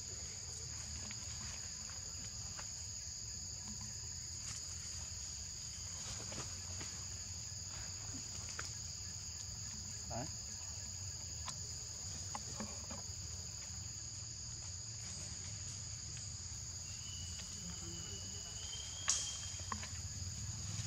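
Steady chorus of insects: two unbroken high-pitched buzzing tones over a low background rumble, with a few faint clicks and rustles scattered through.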